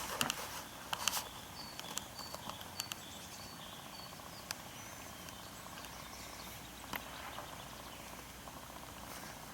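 Footsteps on a country path, most of them in the first couple of seconds, with a small bird giving a run of short high notes a few seconds in. Quiet outdoor background throughout.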